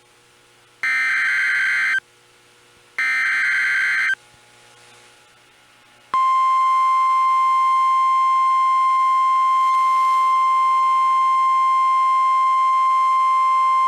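NOAA Weather Radio Emergency Alert System signal: two harsh, warbling data bursts of the SAME header, each about a second long and a second apart. About six seconds in, the steady single-pitch 1050 Hz weather radio warning alarm tone starts and holds. It marks the start of a new warning broadcast.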